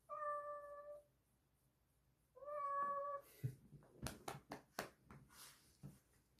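Domestic cat meowing twice, two clear sustained meows, followed by a string of light clicks and taps.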